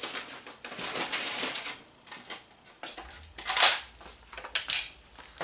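Handling noise from an Ithaca Model 37 pump shotgun being turned over in the hands: rustling at first, then a few sharp metal clicks in the second half.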